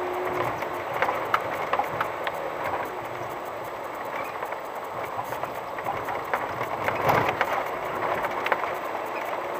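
VW T5 van rolling slowly over an unpaved dirt-and-gravel track: steady tyre and road noise with frequent irregular small clicks and knocks from stones and the bouncing van.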